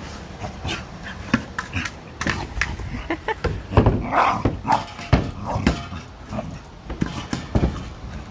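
A dog playing with a large hard ball, knocking and nosing it along so that it bumps again and again, with a few short yips and grunts from the dog about halfway through.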